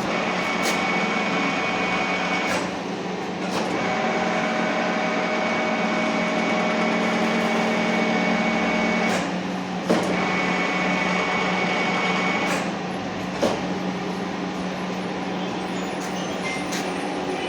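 Niigata universal milling machine running: a steady gear-drive hum with a whine that comes and goes in stretches of a few seconds. A sharp knock about ten seconds in, and a lighter one a few seconds later.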